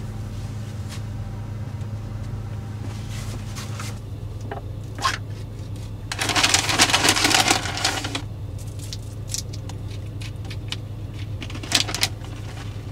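Steady low hum inside a van, with a few sharp clicks and a rustling stretch of about two seconds around the middle.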